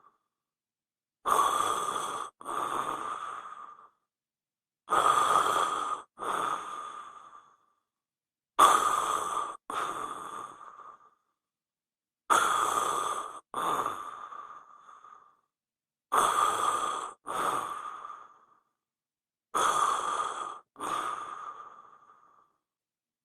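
A person snoring in a repeating two-part pattern, six times about every four seconds. Each snore has a louder first part and a second part that fades out, with silence between snores.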